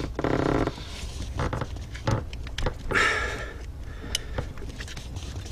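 Small plastic clicks and rattles as a seat wiring-harness connector is worked at its snap-button latch to unplug it. A short straining grunt comes right at the start.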